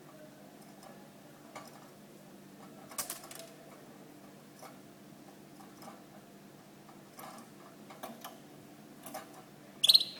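Canary in its cage: scattered light clicks and taps, about one every second or so, then a single short, bright chirp near the end.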